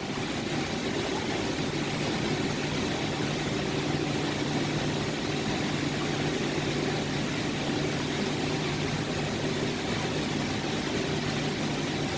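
Milling machine running steadily, a low hum with a faint steady tone over even noise, without a chatter squeal.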